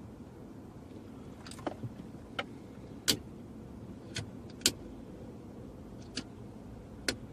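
Irregular sharp clicks and taps, about eight in seven seconds and loudest twice in the middle, from multimeter probes and wiring being handled while wires are tested for voltage, over a steady low background hum.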